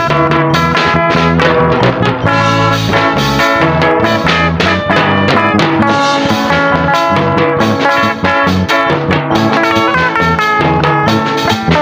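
Live band playing a cha-cha medley, with electric guitars, bass guitar and drum kit keeping a steady dance beat.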